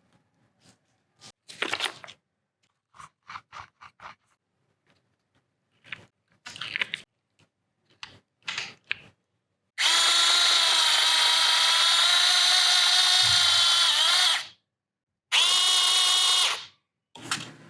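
Small electric power tool running with a steady high whine for about five seconds, stopping, then running again briefly. Before it, scattered light clicks and taps.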